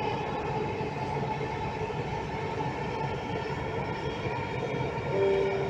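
Delhi Metro train running between stations, heard from inside the coach: a steady rumble and rush of wheels and traction motors. A short steady tone sounds near the end.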